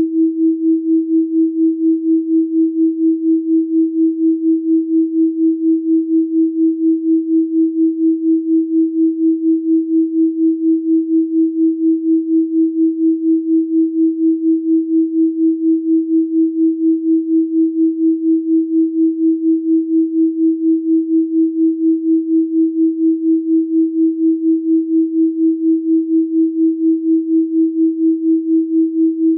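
Electronically generated pure sine tone at 324 Hz, held steady, with its loudness pulsing evenly about three times a second.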